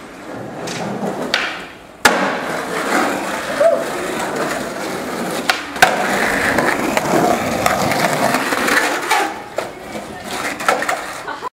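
Skateboard wheels rolling over asphalt in a steady rough rumble, broken by sharp clacks of the board hitting the ground, the loudest about two seconds in and more around six seconds.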